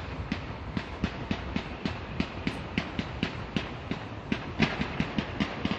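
Fireworks going off in a rapid, evenly spaced series of pops, about three or four a second, with a denser flurry about four and a half seconds in.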